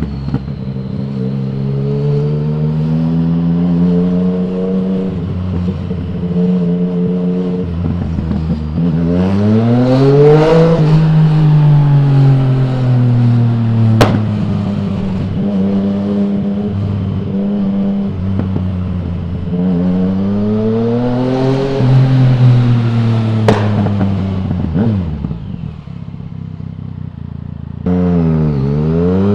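2020 Yamaha MT-09 inline three-cylinder engine through an Akrapovic full-system exhaust with the dB killer removed, under way. The revs climb and drop several times as the bike accelerates and rolls off, with two sharp clicks, and a quick rev rise and fall near the end.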